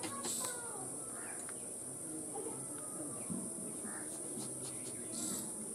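Steady high-pitched chirring of insects, with a few faint knocks and faint distant calls.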